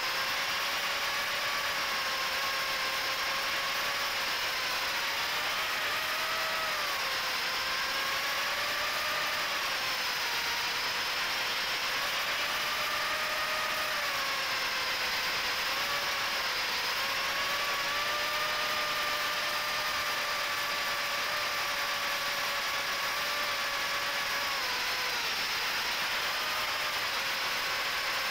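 Brushless motors and propellers of a micro FPV quadcopter whining in flight, the pitch rising and falling with the throttle over a steady rushing hiss, heard from the quad's onboard camera.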